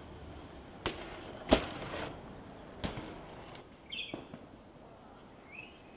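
Four sharp knocks and clatters of a BMX bike hitting pavement, the loudest about a second and a half in. A bird chirps twice near the end.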